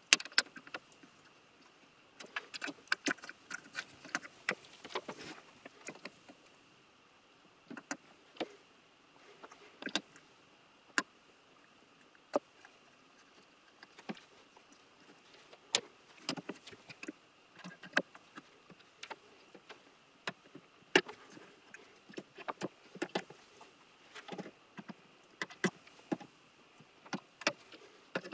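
Irregular sharp clicks and small taps of parts and tools being handled on a Macintosh Classic II logic board: components being pried and pulled from the board, over a faint steady high whine.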